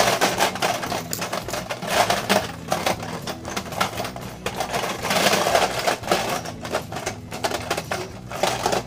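Rapid, dense clicking and clattering of hard plastic with the crinkle of a plastic bag: a hand rummaging through a box of fidget spinners.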